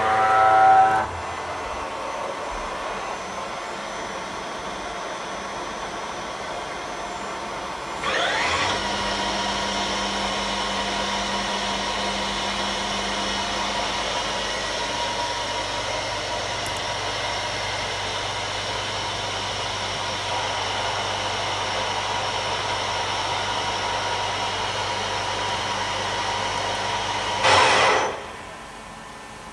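Supermax YCM VMC65A CNC machining centre's spindle running up with a rising whine about 8 seconds in, running steadily with a whine and a low motor hum, then stopping near the end, after which only a quieter background hum remains.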